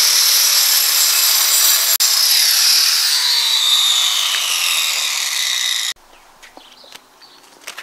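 A 4-inch handheld angle grinder cuts into stucco, making a loud grinding hiss over a high whine. The whine drops in pitch midway, and the sound cuts off abruptly about six seconds in. A few faint knocks follow.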